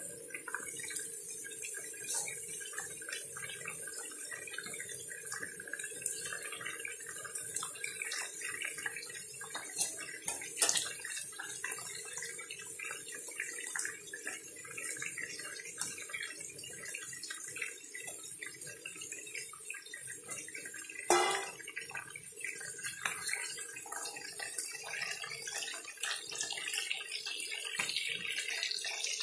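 Chicken pieces and potatoes simmering in their sauce in a pan, with a steady bubbling sizzle full of small pops. A couple of sharp clicks stand out, the loudest about 21 seconds in.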